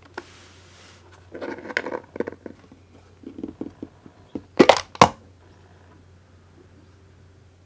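Plastic lid of an enamel storage container being handled and prised off: soft clicks and rubbing, then two sharp plastic snaps close together, the loudest sounds, as the sealed lid comes away.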